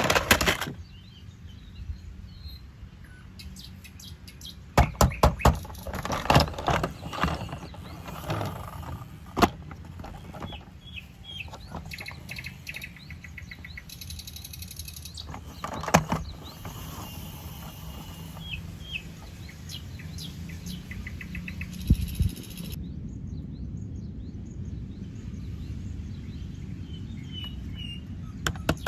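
Scattered clicks and knocks of plastic toys being handled, with birds chirping faintly in the background over a steady low hum.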